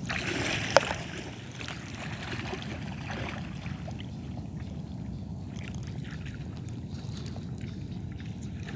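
Shallow seawater sloshing and splashing around wading legs, loudest in the first second, over a steady low rush.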